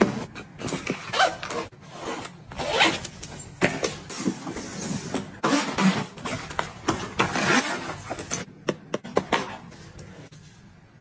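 Zippers being drawn on fabric packing cubes and a zippered toiletry bag, with rustling of the fabric as they are handled, in a run of short scraping strokes. The handling quiets down near the end.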